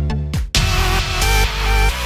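Electronic dance music with a regular beat. About half a second in it cuts out for an instant, then drops into a fuller section with held synth tones.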